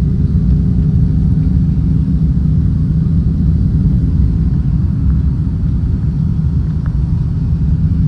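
Loud, steady low rumble of a car on the move.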